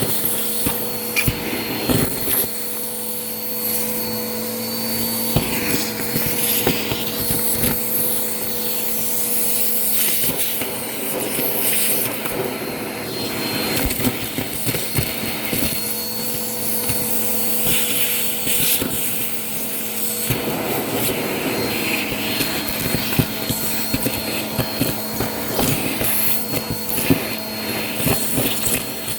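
Vacuum cleaner running steadily with its motor whine, crunching and crackling as debris is sucked up, with many small clicks throughout.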